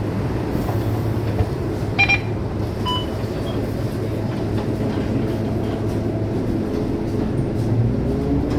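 Scania K230UB city bus running, heard from inside near the front: a steady low engine hum with road and cabin rumble. Two short electronic beeps sound about two and three seconds in. Near the end the engine note rises in pitch as the bus accelerates.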